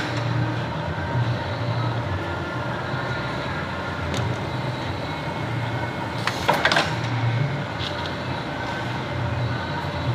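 Factory machinery running with a steady low hum, with a brief metallic clatter about six and a half seconds in.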